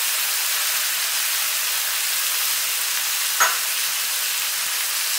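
Cubed pumpkin and whole spices frying in oil in a kadhai, a steady sizzle, with one sharp click a little past halfway.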